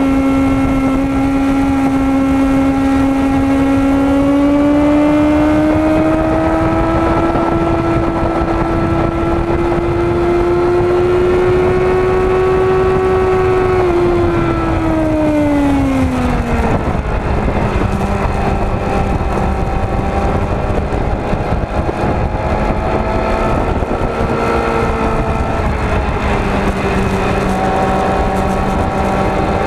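Yamaha WR250R supermoto's single-cylinder four-stroke engine under way at track speed, heard from on board with heavy wind rush on the microphone. Its note climbs slowly, falls off over a few seconds about halfway through, then holds at a lower pitch.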